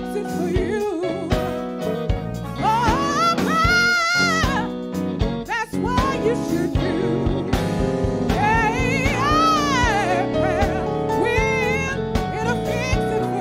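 Gospel song: a singer holding long, wavering notes over a band with a steady drum beat.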